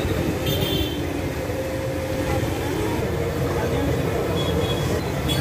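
Steady din of a busy street-food stall: crowd voices over a constant low rumble of traffic.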